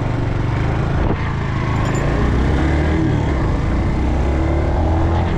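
Suzuki GZ250 single-cylinder motorcycle engine running on a newly fitted aftermarket carburettor, its pitch climbing from about halfway through as it picks up revs.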